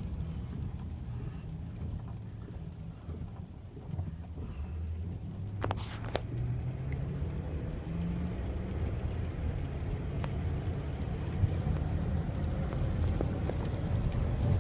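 Car engine and road noise heard from inside the cabin: a steady low rumble, with the engine note rising for a few seconds around the middle as the car speeds up. A couple of short clicks sound about six seconds in.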